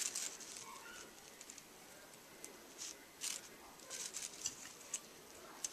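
Faint, scattered short rustles and light taps from hands handling a ribbon bow on a metal barrette, bunched in the second half.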